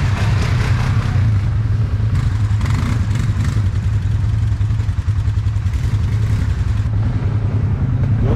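All-terrain vehicle (quad bike) engine running steadily, heard close up from the machine the camera rides on, with no rise or fall in revs.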